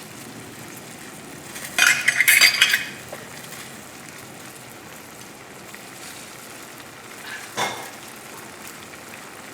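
Chicken and sauce sizzling steadily in a frying pan as white wine and lemon juice cook down. About two seconds in, a second of loud metallic clattering of cookware, and a shorter knock near the end.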